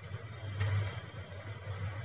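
Faint rustling and light scraping of wires being handled and fitted into the terminals of a switch plate, with a short louder rustle about half a second in, over a steady low hum.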